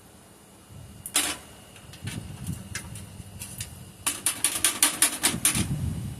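Sharp clicks and knocks while a silver casting mold is broken open to free the poured bar. A few single clicks come first, then about four seconds in a quick clattering run of them.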